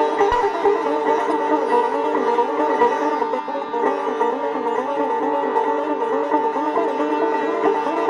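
Sitar playing a melody of bending, gliding notes over the steady ringing drone of its sympathetic strings.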